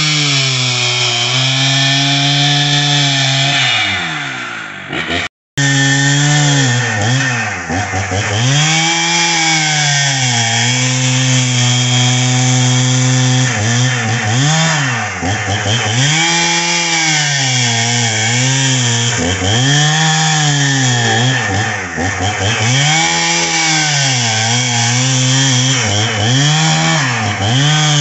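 Husqvarna 61 two-stroke chainsaw at full throttle, ripping lengthwise along a log to cut a plank. The engine pitch dips and recovers again and again as the chain bogs in the cut. The sound drops out for a moment about five seconds in.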